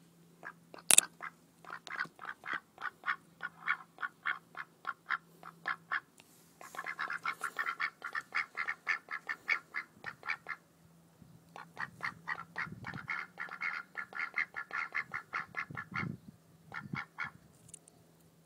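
Mallard ducks quacking close up in quick runs of short repeated calls, with two brief lulls. One sharp tap about a second in, as a bill strikes the phone.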